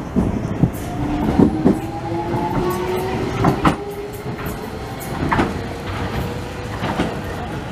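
Docklands Light Railway train pulling out of the station: its traction motors give a whine that rises slowly in pitch as it gathers speed. A few sharp clicks from the wheels come through at irregular moments.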